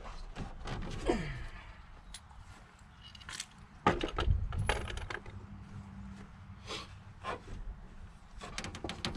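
Scattered light metallic clinks and knocks of an engine part and hand tools being handled and set down, with a heavier knock and low thump about four seconds in.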